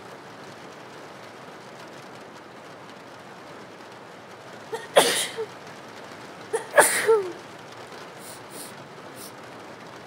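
A young woman sneezes twice, about five and seven seconds in. Each sneeze has a quick catch of breath just before it, and both come over a steady hiss of rain.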